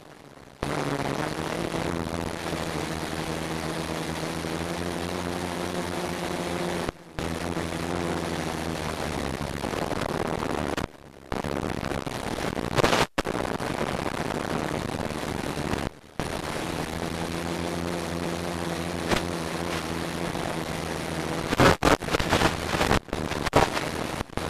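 A quadcopter's motors and propellers whirring steadily, the pitch shifting a little as the throttle changes, with the sound cutting out briefly three times. Near the end a cluster of sharp cracks and knocks breaks in.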